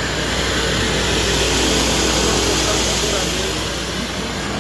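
Scania 340 truck's diesel engine running through a free (open) exhaust with a 4½-inch side pipe. It swells a little in level near the middle and then eases back.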